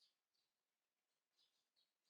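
Faint, short high-pitched bird chirps, about four in two seconds.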